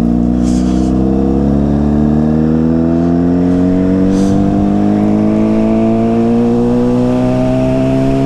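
Yamaha Fazer 600's inline-four engine, fitted with a WR slip-on exhaust, pulling steadily in one gear. Its pitch rises slowly and evenly as the motorcycle gains speed.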